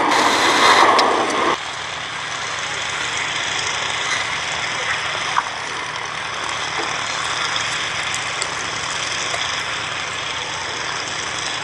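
Gloster Meteor T7's twin Rolls-Royce Derwent turbojets in flight, a steady rushing jet noise. It is louder for about the first second and a half, then drops suddenly to a lower, steady level.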